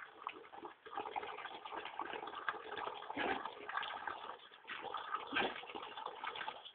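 A thin stream of water pouring into a bucket of water, splashing and gurgling unevenly.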